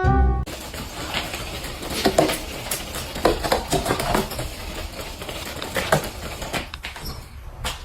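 Irregular clattering and knocking of small hard objects, with a held cello note cutting off about half a second in.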